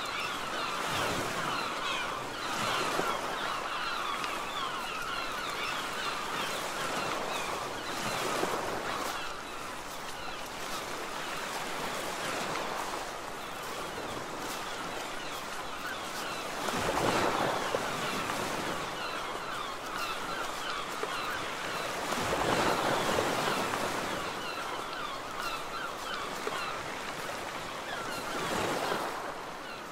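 Sea waves washing onto the shore, swelling louder every few seconds, with many birds calling busily over them.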